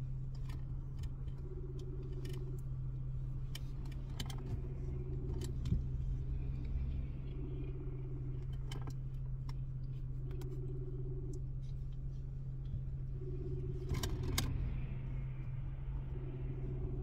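Phone ringback tone over a speakerphone as an outgoing call goes unanswered: a tone of about a second that repeats roughly every three seconds. Under it runs a steady low hum, with scattered clicks and taps and a short cluster of them near the end.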